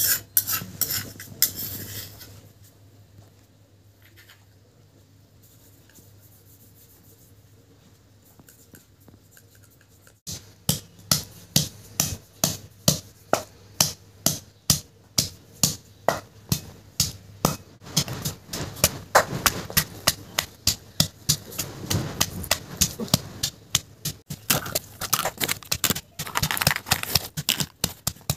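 A wooden pestle pounding raw radish in a stone mortar, about two dull knocks a second with some crunching, starting about ten seconds in. Before that there are a few clinks and then a quieter stretch.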